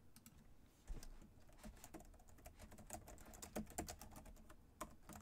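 Faint typing on a computer keyboard: a run of quick, irregular key clicks.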